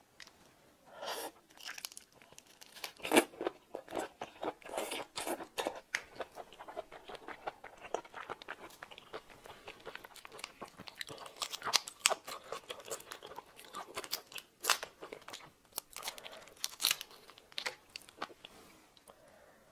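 Shell of a raw prawn cracking and crinkling as it is peeled by hand close to a clip-on microphone: a long, irregular run of sharp crackles and clicks.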